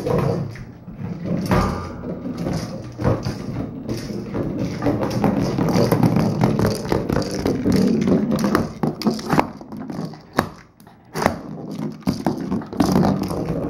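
Hard plastic IQ Treat Ball rolling and knocking across a hard floor as a dog pushes it with nose and paw, with the treats inside rattling in many sharp, irregular clicks.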